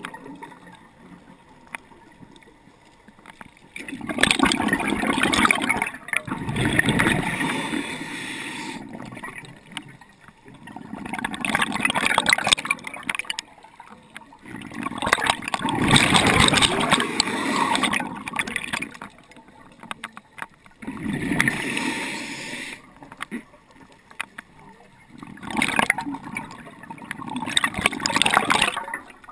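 Scuba diver breathing through a regulator underwater: about five breaths roughly five seconds apart, each a hiss followed by gurgling exhaled bubbles, with quieter gaps between.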